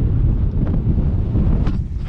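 Wind buffeting the microphone of a camera carried on a moving bicycle: a heavy, steady low rumble.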